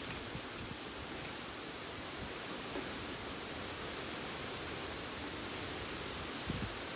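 Strong wind, about 20 m/s, blowing as a steady, even rushing hiss. A brief low buffet of wind on the microphone comes near the end.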